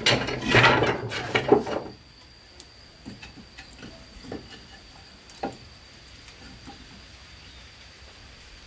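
Dry firewood sticks scraping and clattering as they are pushed into a brick wood stove's firebox for about two seconds, then scattered small clicks and knocks from the sticks and the fire. A faint steady high tone sits underneath.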